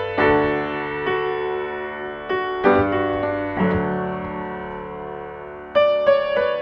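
Upright piano being played: chords struck about every second or so and left to ring and fade, with a low bass note partway through and a louder group of notes near the end.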